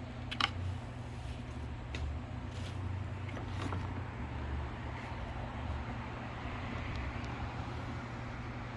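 Steady low background hum with a few faint clicks and knocks of plastic pressure-washer parts being handled.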